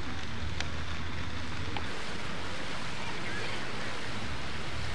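Outdoor ambience on a camcorder microphone: a steady noisy wash with low wind rumble that swells and drops, and faint voices of people in the distance.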